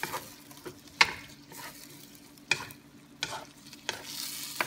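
Wooden spatula stirring pork belly, fish balls and fish cakes in sauce in a nonstick wok, knocking and scraping against the pan every half second to a second, over a light sizzle that swells near the end.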